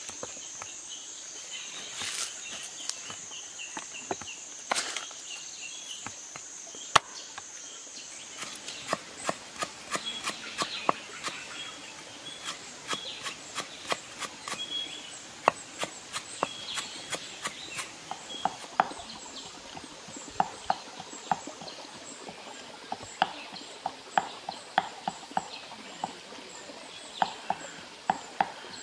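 Large kitchen knife chopping fresh lemongrass into thin rings on a wooden board: a long string of sharp, irregular chops. A steady high insect drone and bird chirps run behind it, and the drone fades out about two-thirds of the way in.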